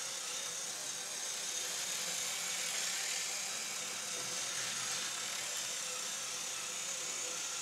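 Motorized sand drawing machine running: a steady whir with a faint hum.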